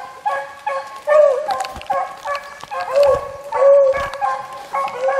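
A pack of beagles baying in a loud, overlapping chorus, several calls a second: the hounds giving voice as they run a rabbit's track.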